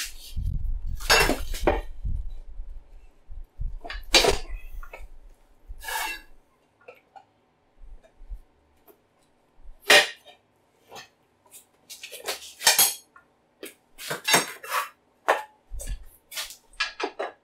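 Manual motorcycle tire changer with a duck-head attachment at work: the steel bar, duck head and tire iron clank, click and scrape irregularly against the metal rim as a tire is worked over it. A low rumbling scrape runs through the first couple of seconds.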